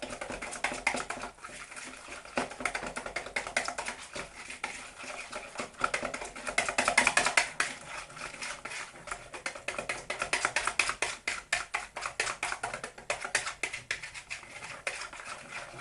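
Wire balloon whisk beating a flour, egg and milk batter in a glass bowl: rapid, continuous clicking and tapping of the wires against the bowl, loudest about six to eight seconds in.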